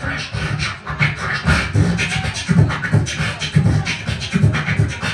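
Human beatboxing through a microphone and PA speakers: a vocal drum pattern of deep kick-drum thumps about twice a second under fast hi-hat and snare clicks.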